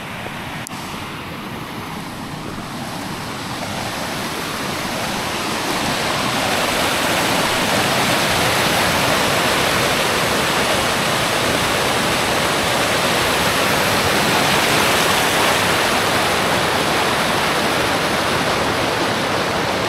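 Small waterfall and creek cascading over boulders: a steady rushing of water that grows louder over the first several seconds, then holds.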